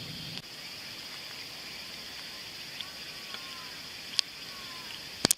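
Outdoor ambience dominated by a steady high-pitched insect trill, with a few faint chirps, one sharp click about four seconds in and two sharp clicks at the very end before the sound cuts off.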